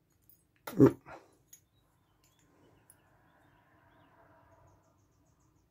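A short "oop" exclamation, then faint clicks and a soft scraping rustle as small steel lock-pick tension wrenches are handled.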